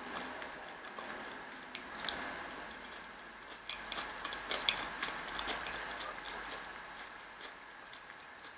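Close-up eating sounds. A plastic fork picks through food in a plastic takeout tray, then a mouthful is chewed with small wet mouth clicks, over a faint steady high hum.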